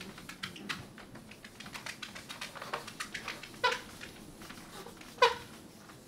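Marker writing on a whiteboard: a run of light taps and scratches, with two short squeaks about three and a half and five seconds in, the second the loudest.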